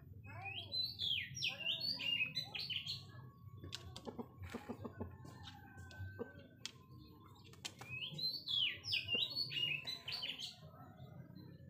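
A small wild bird singing two quick, high, warbling phrases, one near the start and one about eight seconds in, with a few short clicks in between.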